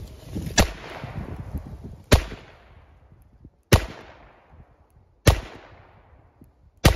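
Five shots from a Smith & Wesson Safety Hammerless revolver in .38 S&W, fired at an even pace about a second and a half apart, each report trailing off in a fading echo. The loads are very mild factory 146-grain lead round-nose rounds at about 525 feet per second.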